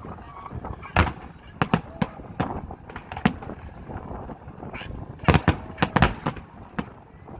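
Aerial fireworks bursting: about a dozen sharp bangs at irregular intervals, with a quick run of the loudest ones about five to six seconds in.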